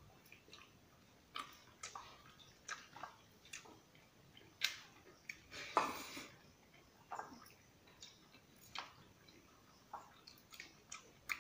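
Close-up eating sounds: wet chewing and lip smacks, with light clicks of fingers mixing rice and fish curry in a steel plate. The sounds are short and irregular, with one louder, longer wet sound a little past halfway.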